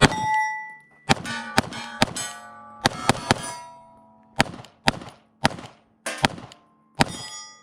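Rapid gunshots, about a dozen at uneven spacing, each followed by the clang and ringing of a struck steel target.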